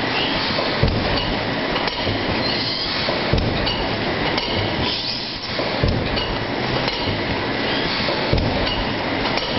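Automatic plastic cup thermoforming machine with stacker running: a steady mechanical clatter with a sharp knock every second or two as it cycles.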